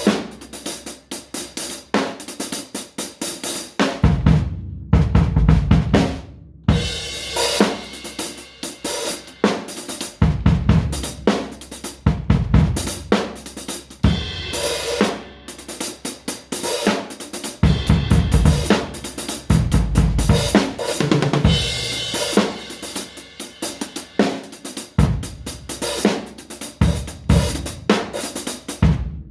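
Drum kit played in a loose, improvised way: kick drum, snare, hi-hat and cymbals in dense runs of hits, with a few short breaks in the playing.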